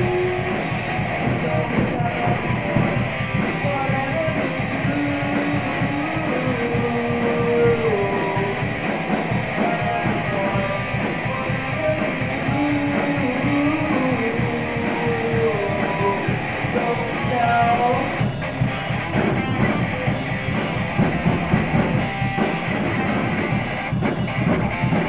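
Live rock band playing: electric guitars through Marshall amplifiers over a drum kit, with a woman singing a melodic line.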